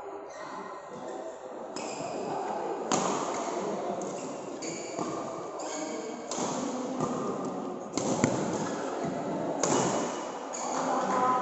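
Badminton rally: rackets hitting the shuttlecock in a series of sharp strikes, one every second or two.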